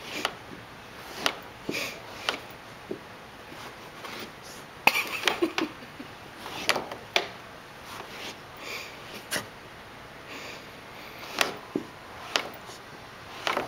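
A dog nosing and scratching at carpet in a corner while hiding his bone, with irregular short scuffs, snuffles and knocks. A quick cluster of them comes about five seconds in.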